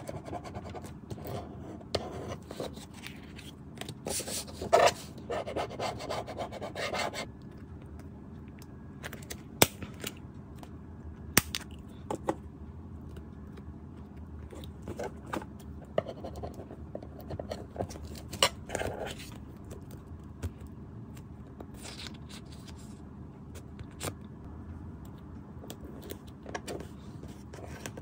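A flat metal tool is rubbed and scraped firmly over layered collage paper to smooth it down for several seconds. Then come quieter paper handling and a few sharp single clicks, the clicks of a corner-rounder punch cutting the sheet's corners.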